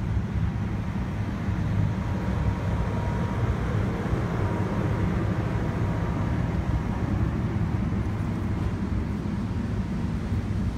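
Steady low rumble and hiss of a standing passenger train's running equipment, with a faint thin whine through the first several seconds.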